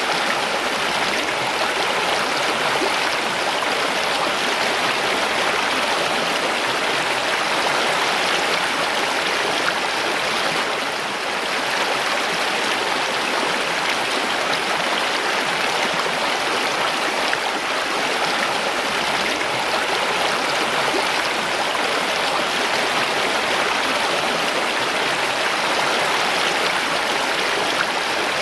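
Mountain stream running over rocks: a steady rushing of water, with a brief slight dip in level about eleven seconds in.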